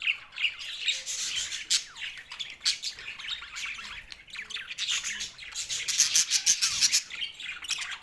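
Budgerigars chattering, a continuous stream of quick high chirps and warbles that grows loudest and busiest a little past the middle.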